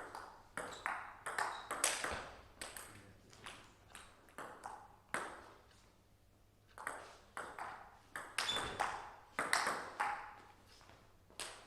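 Table tennis rally: the ball clicking sharply as it bounces on the table and is struck by the rackets, several times a second. The clicks stop about six seconds in, then a second rally starts.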